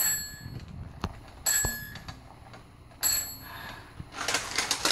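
A small bell, likely on a toddler's toy, rings three times about a second and a half apart, each ring dying away quickly. Near the end come several quick clicks and rattles of plastic toy parts.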